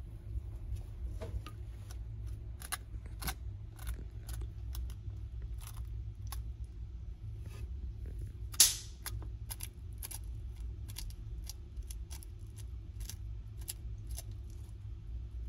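Yellow-headed water monitor crunching quail eggs in its jaws: irregular sharp cracks of eggshell, about one or two a second, with one much louder crack about eight and a half seconds in, over a steady low hum.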